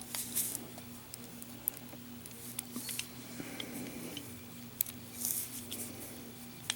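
Scattered small clicks, taps and short rustles of small hard objects being handled, over a faint steady hum.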